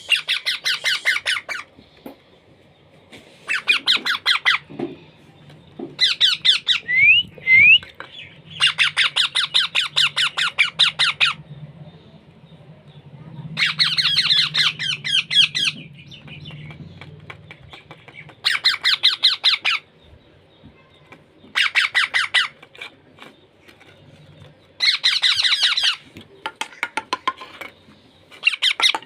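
Baby parrot giving food-begging calls during hand-feeding: bouts of rapid, rasping squawks, each lasting a second or two and repeated about eight times, with a couple of short rising whistles in between.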